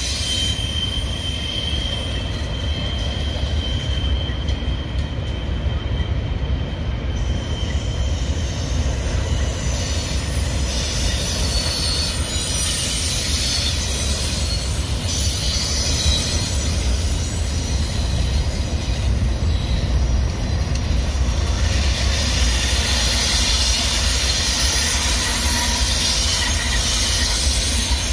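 A double-stack intermodal freight train's container well cars rolling past, steel wheels rumbling steadily on the rails. A thin, steady high wheel squeal in the first several seconds fades out, and the high-pitched wheel noise grows louder again near the end.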